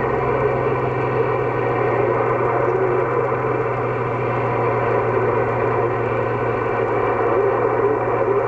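CB radio receiver on the 27 MHz band giving out steady static hiss with a constant hum and several fixed droning tones from an open channel between transmissions.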